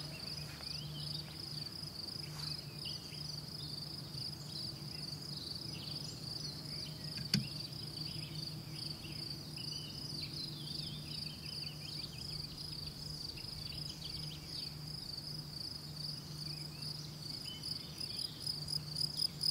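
Field crickets singing: a high, evenly pulsing chirp that goes on without a break, over a faint low hum, with one brief click about seven seconds in.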